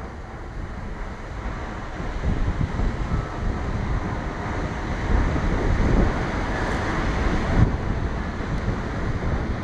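Wind buffeting the microphone, a low rumble that swells and eases in gusts.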